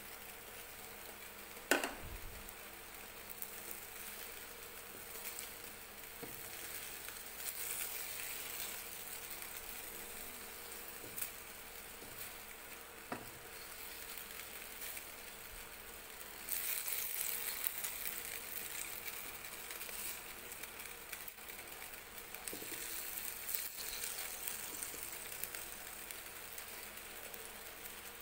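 Chop suey of chicken liver and vegetables sizzling in a wok over a gas flame as the cornstarch slurry thickens the sauce, with a spatula stirring and scraping; the sizzle swells louder in the middle and again near the end. A sharp tap about two seconds in.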